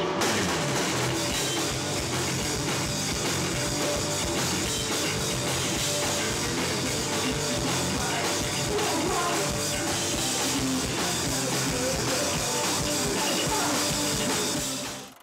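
Live rock band playing: a Sonor drum kit with cymbals crashes in at the start over electric bass and guitar, the band playing hard and steady until the music fades out quickly near the end.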